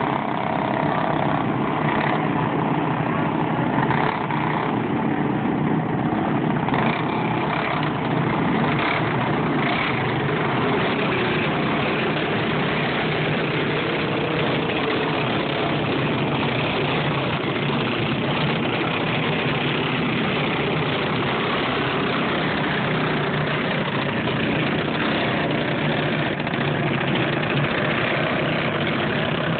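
A pack of racing go-kart engines running together, a steady, dense buzz as the karts lap the track.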